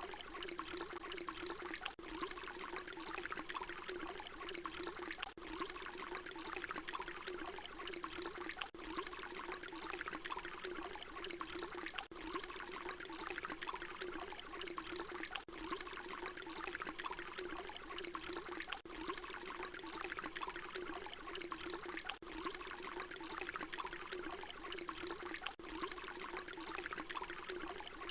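Water pouring in a steady stream, with a brief dip about every three and a half seconds where the short recording loops.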